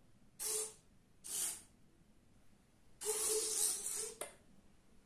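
A bank of SG90 micro servos whirring in three bursts, two short ones and then a longer one about three seconds in, as the clock's segments swing edge-on and the display goes to sleep.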